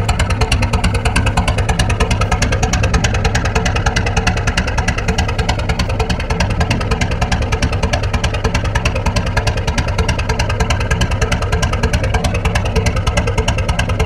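The boat's 1944 Lister JP3 three-cylinder diesel engine running steadily at cruising speed, with an even, rapid beat.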